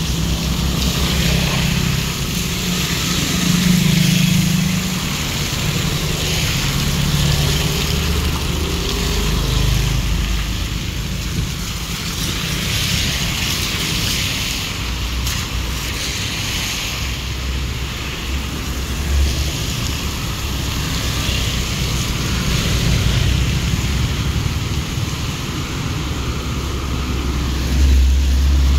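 Motor scooters and cars passing on a wet, flooded road, their tyres hissing through the water over the engines' hum, with wind buffeting the microphone. The traffic gets louder as vehicles go by, notably about four seconds in and again near the end.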